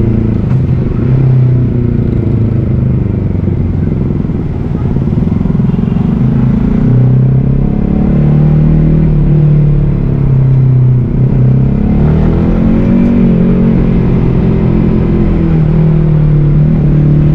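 Yamaha MT-15's single-cylinder engine running while riding along. Its note drops briefly twice as the throttle is eased, then climbs again as the bike accelerates.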